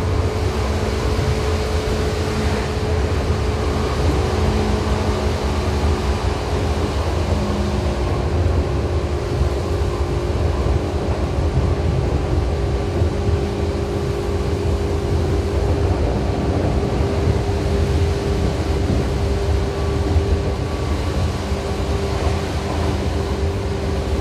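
Seibu New 2000 series electric commuter train running along the line, heard from inside the car: a steady low rumble of wheels and running gear with faint humming tones over it.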